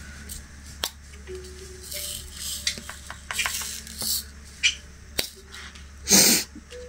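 Diamond-painting work sounds: small sharp clicks and light rattles of resin drills being picked up with a drill pen from a plastic tray and pressed onto the canvas, with a louder rattle of loose drills about six seconds in.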